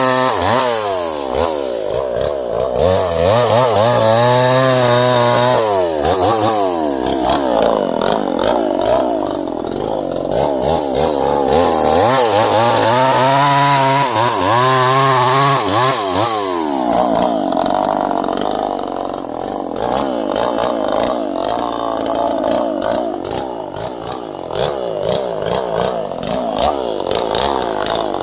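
Two-stroke chainsaw running hard while cutting sengon wood, its engine pitch rising and falling repeatedly as the revs change.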